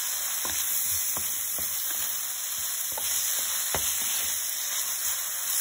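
Pork strips and sliced potatoes sizzling in a hot wok as a wooden spatula stirs them: a steady frying hiss with several short scrapes and knocks of the spatula against the pan.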